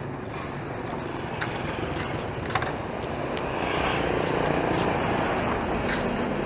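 Street traffic dominated by motorbike engines passing on the road, growing louder about four seconds in, with a few short clicks over it.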